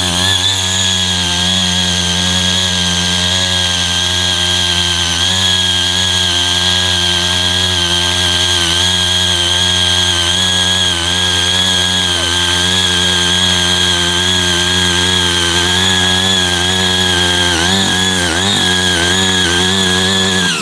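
Small engine of a mini power tiller running steadily at high speed, with a high-pitched whine over its drone; the pitch wavers briefly near the end.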